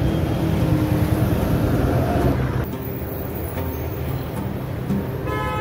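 Busy city road traffic: the steady rumble of passing cars and buses, which drops suddenly a little over two seconds in. A vehicle horn starts sounding near the end.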